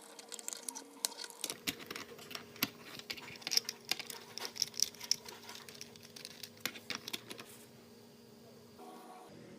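Irregular light clicks and rattles of small hard plastic parts being handled, thinning out after about seven and a half seconds, over a faint steady hum.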